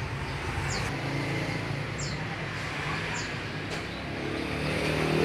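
Steady background hum with a bird chirping three times, short falling chirps about a second apart.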